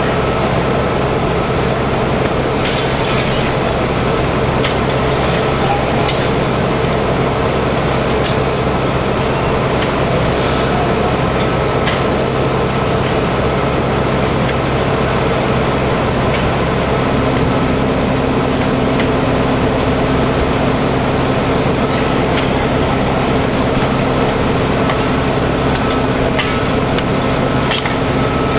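Fire engine running steadily at the scene, its engine driving the pump that feeds the hose line: a constant droning hum. A second, higher hum joins a little past halfway, and a few sharp clinks sound now and then.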